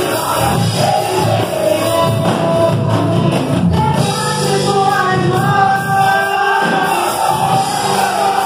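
Youth choir singing a gospel song together, loud and continuous, with many voices in unison and one singing into a microphone.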